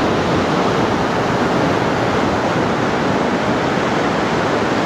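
Steady, even noise of ocean surf breaking on a sandy beach.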